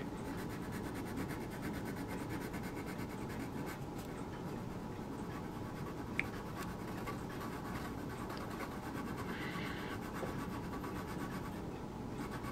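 A foam-backed sanding stick being rubbed over a grey plastic model part to sand it flush, a steady scratching, with one small click about six seconds in.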